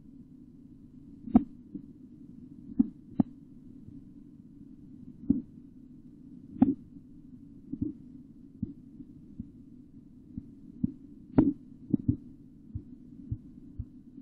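Korotkoff sounds heard through a stethoscope over the brachial artery as a blood pressure cuff deflates: a tap with each heartbeat, about one a second, some taps much louder than others, over a steady low hum.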